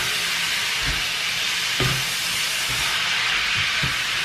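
Hokkien noodles, pork and vegetables sizzling steadily in a hot wok as they are tossed and stirred, with a few soft knocks of the utensil against the pan.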